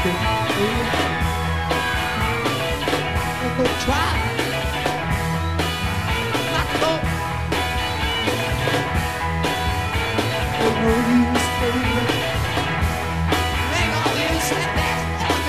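Rock music recording with a steady drum beat, guitar and singing.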